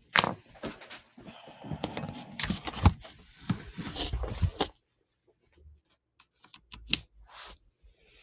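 Clicking and tapping at a computer, with rustling handling noise in the first half and scattered sharp clicks after, one louder click near the end.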